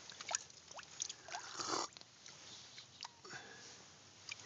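A man slurping spring water from his cupped hand, with small wet mouth clicks and one louder slurp a little under two seconds in, over a faint trickle of spring water.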